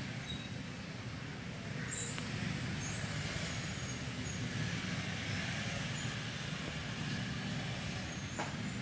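Steady low background rumble with a faint hiss, and a few faint short high chirps now and then.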